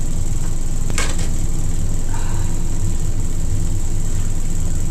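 Steady low hum with a faint high whine, the constant background noise of the recording. A single sharp click comes about a second in.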